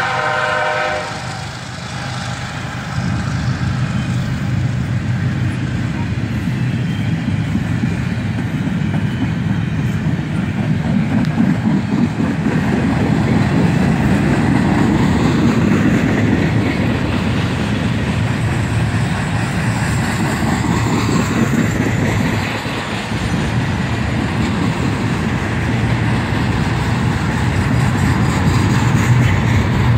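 CSX intermodal freight train passing, double-stack container well cars rolling by with a steady rumble and clatter of wheels on rail. A locomotive air horn sounds for about the first second, then cuts off.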